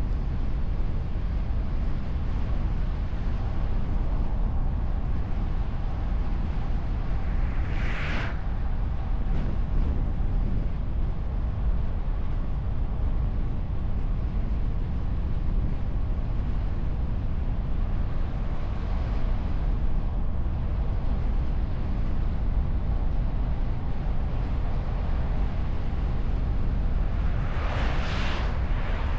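Steady road and wind rumble of a car driving, picked up by a camera mounted on the bonnet behind a foam windshield. Two brief whooshes of passing traffic come through, one about eight seconds in and one near the end.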